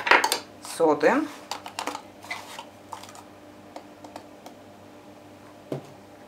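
A few light clicks and taps of a metal teaspoon and a cardboard box of baking soda being handled, then a single knock near the end.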